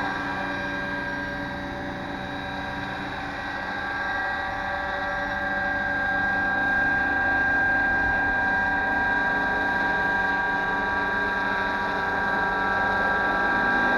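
Radio-controlled AH-6 Little Bird scale helicopter hovering, its motor and rotors giving a steady whine of several fixed tones that grows somewhat louder a few seconds in.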